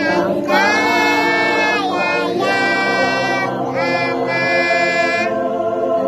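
A young girl and a woman singing a slow song together in three long, held phrases, over a steady musical accompaniment that carries on between the phrases.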